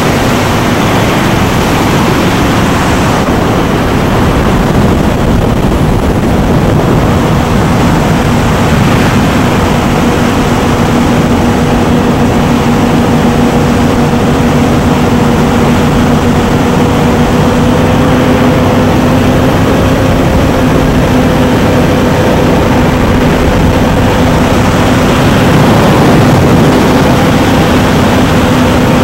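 Loud, steady engine drone holding one pitch over a rushing noise, swelling slightly near the end.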